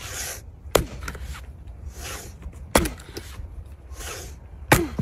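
An axe striking wood three times, about two seconds apart, each blow a sharp crack with a short ring after it and a brief swishing sound of the swing just before.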